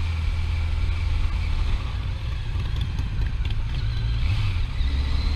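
Motorcycle riding at low speed: a steady engine drone under wind rumble on the helmet-mounted camera's microphone, with a faint rising whine near the end.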